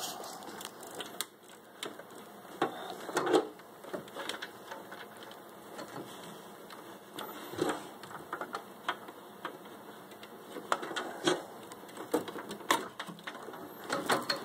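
Irregular clicks, knocks and rattles of power-supply cables and plastic connectors being handled inside a desktop PC case, with a few louder knocks.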